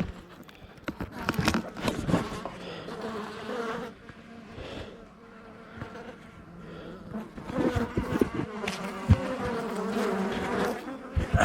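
Honeybee colony buzzing: a steady hum that wavers in pitch and grows louder about halfway through, with scattered knocks and clicks.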